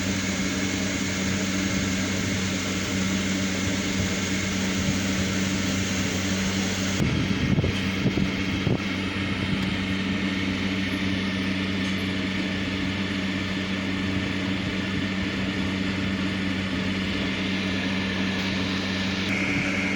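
A steady low hum over hiss, with a few knocks about seven to nine seconds in.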